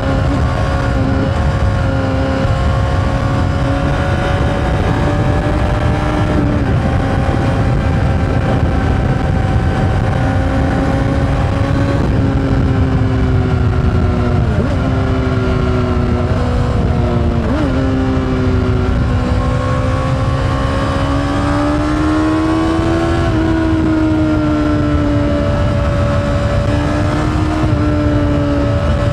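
Honda CBR600RR inline-four sport-bike engine with an Akrapovic exhaust, running at steady high revs under way. The pitch dips sharply twice about halfway through, then climbs again near the end, over wind and road rush.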